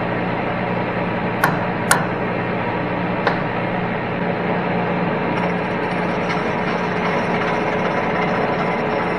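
A mallet tapping a cast-iron exhaust manifold three times to seat it in its setup on the boring mill table: two sharp taps about half a second apart near a second and a half in, then a lighter one about three seconds in. A steady hum runs underneath.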